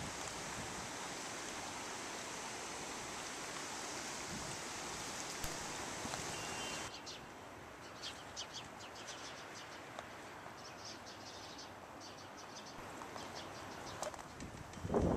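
A shallow stream running with a steady rush of water; it stops abruptly about seven seconds in, leaving small birds chirping, with a rustle near the end.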